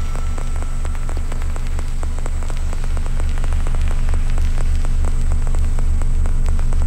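Electronic noise-drone music from a drone synth through Kaoss Pad effects: a low bass drone throbbing about four times a second under a dense rain-like crackle of glitchy clicks, with a thin steady high whine above.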